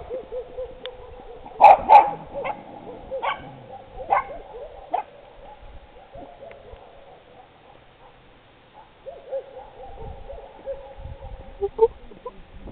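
Dogs vocalizing: drawn-out pitched calls mixed with short sharp barks, the loudest two barks close together about two seconds in. Quieter for a few seconds mid-way, then the drawn-out calls return near the end.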